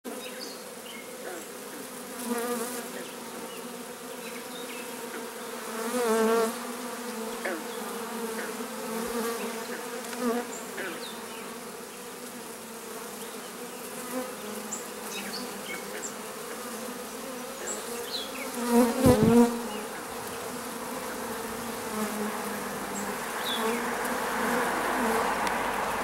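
A honey bee swarm buzzing in a steady, dense hum. Louder, wavering buzzes come and go a few times, the loudest a little past the middle.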